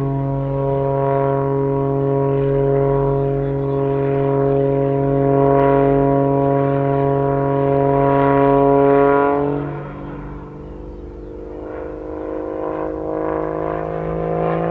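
Aerobatic MXS plane's Lycoming AEIO-540 six-cylinder boxer engine and propeller running at high power with a steady drone. About two-thirds through, the pitch drops and it goes quieter, then it builds back up toward the end.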